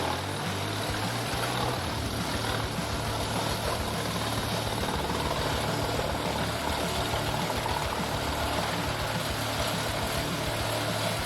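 Engine of heavy machinery running steadily: a continuous low hum with a broad, even hiss over it.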